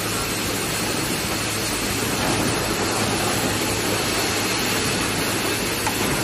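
Paper cup forming machine running: a steady mechanical din with a constant low hum.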